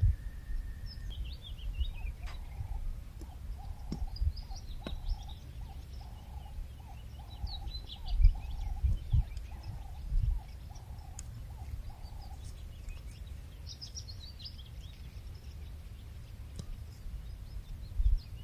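Birds calling outdoors: a rapid series of repeated call notes, about two or three a second, runs for about ten seconds and then stops. Higher chirps from other birds come and go over a steady low rumble with a few thumps.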